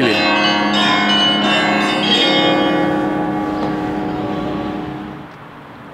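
Orthodox monastery church bells ringing together for the evening service, several bells sounding at once, the ringing dying away about five seconds in.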